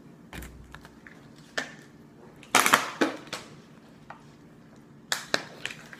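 Clear plastic crinkling and crackling as it is handled, in short irregular bursts; the loudest run comes about two and a half seconds in.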